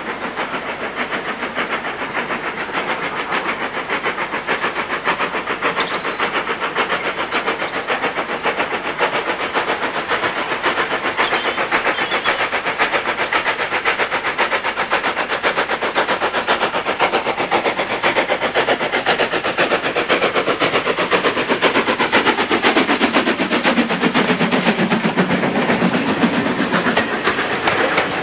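Steam tank locomotive working a train up a gradient, its exhaust beating steadily and growing louder as it approaches. Near the end the coaches run close by, rumbling and clattering over the rails.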